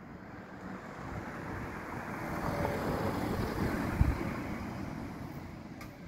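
A small car passing close by on a narrow street: its engine and tyre noise rise to a peak about three to four seconds in and fade as it drives away. A brief low thump comes about four seconds in.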